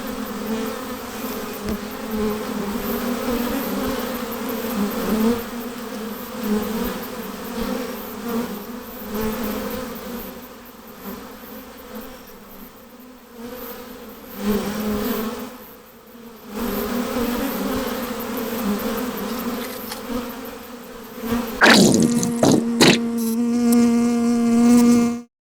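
Bees buzzing, a continuous droning hum that wavers in loudness. Near the end a few sharp clicks are followed by a louder, steady buzz that cuts off suddenly.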